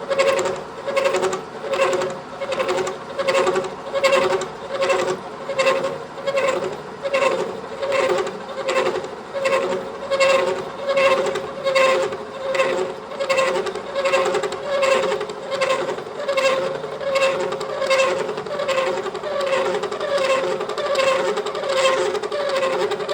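Milling cutter on a Kearney & Trecker horizontal milling machine cutting a key slot into a ball valve's ball under power feed. It chatters, a ringing tone that swells and fades about once a second.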